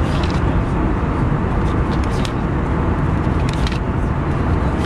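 Steady cabin noise aboard an Airbus A321-231 airliner: a constant low rush from its engines and the airframe, with a few brief light rattles.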